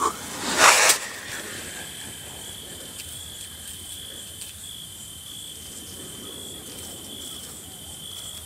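Crickets trilling, a steady high-pitched chirr that swells in short pulses. A brief rustling noise comes in the first second.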